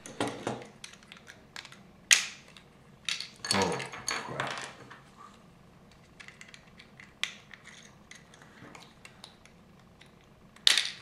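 Plastic LEGO pieces clicking and rattling as parts are pressed onto a small brick-built submarine and it is turned in the hands, with irregular sharp clicks, the loudest about two seconds in and just before the end.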